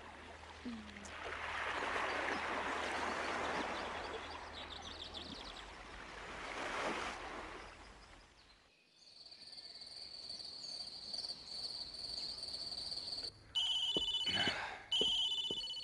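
Outdoor film ambience: a rushing noise that swells twice, then, after a brief drop, steady high-pitched insect chirring, with louder pulsing high chirps near the end.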